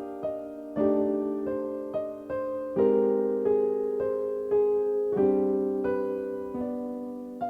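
Slow, gentle piano melody over held chords, with notes struck roughly every half second to a second, each ringing and fading.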